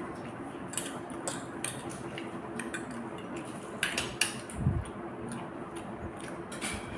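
Fork and spoon clinking and scraping on a ceramic plate of noodles and fried chicken, in light irregular clicks, with a few louder clinks about four seconds in and a low thump just after.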